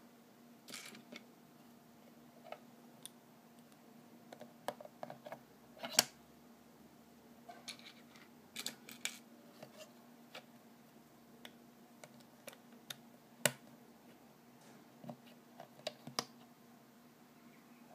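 Plastic LEGO bricks clicking and clattering as they are handled, pressed together and set down on a wooden tabletop: irregular sharp clicks, the loudest about six seconds in and again past the middle, over a faint steady hum.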